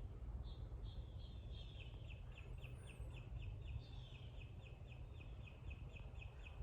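A bird calling in a fast run of short, high notes, about five a second, over a low steady rumble of outdoor background noise.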